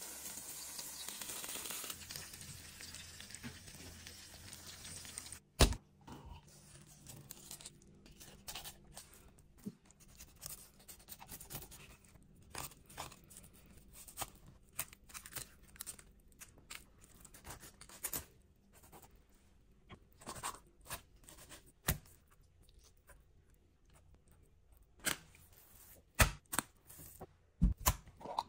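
Kitchen handling sounds as a sea bream is filleted with a knife on a wooden cutting board and the fillets are laid in a glass baking dish: scattered small scrapes and taps, with a few sharp knocks, one about five seconds in and several near the end. A soft hiss runs through the first few seconds.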